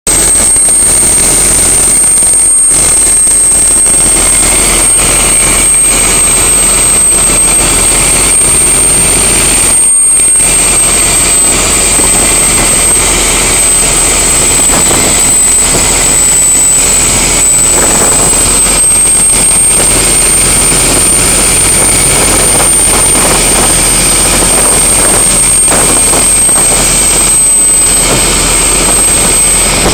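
Canal express boat under way at speed: its engine running loud and steady under the rush of water churning alongside the hull, with a thin, steady high whine over it.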